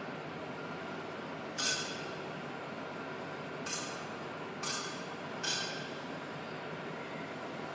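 Steady background hum broken by four short, sharp handling noises about one to two seconds apart, the first the loudest, as the priest handles things at the altar.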